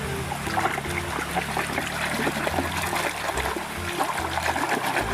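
Water splashing and trickling as a muddy toy is rinsed by hand in a river, over background music with a steady low bass line.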